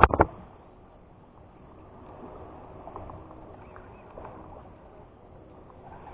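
Steady wash of sea water and wind at the shoreline, opening with a brief loud burst.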